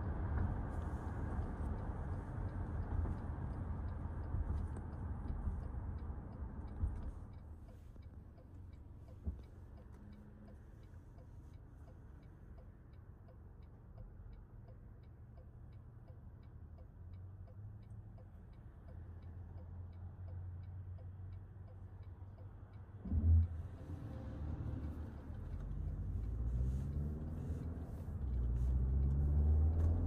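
Inside the cabin of a 2024 Toyota RAV4 Limited: tyre and road noise, which drops away about seven seconds in as the car comes to a stop. While stopped, the turn-signal indicator ticks steadily. About 23 seconds in there is a thump, then the four-cylinder engine note rises as the car pulls away and accelerates through the eight-speed automatic.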